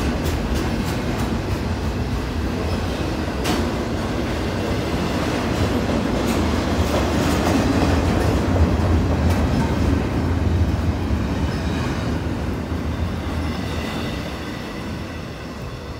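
Double-stack container train's well cars rolling past, a steady rumble with occasional sharp wheel clacks. The sound fades over the last two seconds as the last cars go by.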